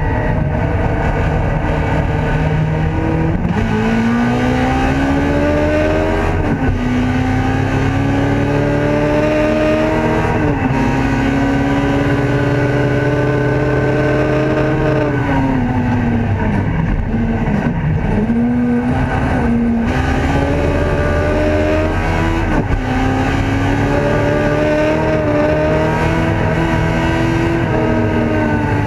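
Ford Escort race car's engine heard from inside the cabin under hard acceleration, its pitch climbing and dropping back at upshifts about every three to four seconds. Midway the revs fall away as it slows and shifts down for a corner, then it accelerates hard through the gears again.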